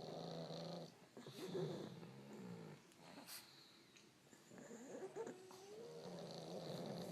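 Sleeping pugs snoring: a run of buzzing snore breaths one after another, with a thin whistling wheeze on one breath about five seconds in.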